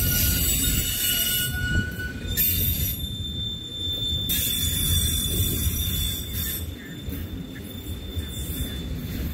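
Freight train of autorack cars rolling past, its wheels squealing in steady high-pitched tones over a low rumble of wheels on rail. The squeal shifts to a higher pitch a little after two seconds in.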